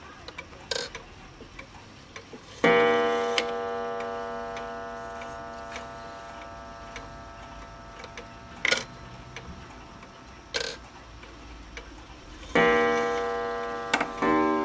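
Pendulum wall clock ticking while its minute hand is turned by hand, with a few short clicks from the hands. The strike train sounds a single gong stroke as the minute hand passes the half hour, then begins striking the hour near the end with two strokes, each ringing and fading slowly.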